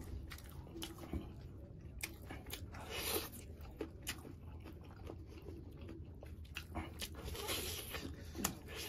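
Close-miked chewing and biting on curried chicken leg meat, with many short wet mouth clicks and two longer rasping stretches as the meat is pulled apart by hand; a bite into the leg comes near the end.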